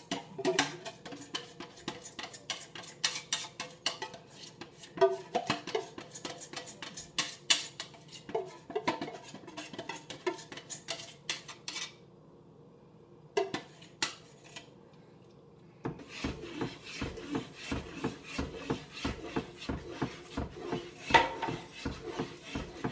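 A metal utensil scraping and clicking against the inside of a tin can, working out the last of a thick, sticky malt extract, in quick irregular strokes. After a pause of a few seconds, a spoon stirs and knocks against the inside of a stockpot in rapid, repeated clinks and knocks.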